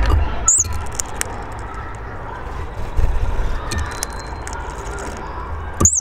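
Hawfinch calling: two short, sharp, high-pitched calls, one about half a second in and one near the end, over a low steady background rumble.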